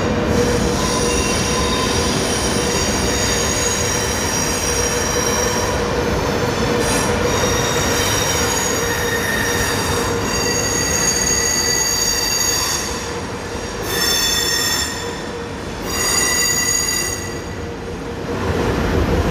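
Renfe Avlo high-speed train rolling slowly into an underground station, its wheels squealing on the rails over a steady rumble. The squeal is made of several high tones held steady and breaks off briefly three times near the end.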